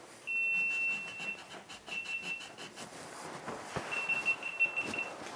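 High-pitched electronic beeping: one long steady beep, then two runs of quick pulsed beeps at the same pitch. Beneath it are soft handling noise and a single knock.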